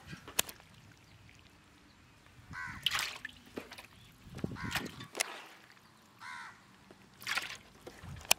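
Pieces of raw chicken liver plopping into a steel bowl of water, one splash every second or two. A crow caws a few times in the background.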